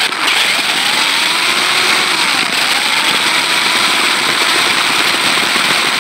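Electric drive motor and gearbox of a remote-control 6×6 buggy whining steadily as it drives over rough pavement, heard from a microphone riding on the car, with a hiss of tyre and wind noise; the whine rises and falls a little in pitch.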